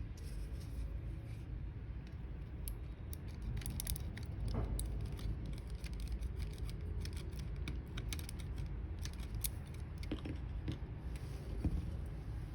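Irregular small clicks, taps and scratches of hands working on the small plastic and metal parts of a Logitech G903 wireless mouse while its battery is being replaced, over a steady low hum.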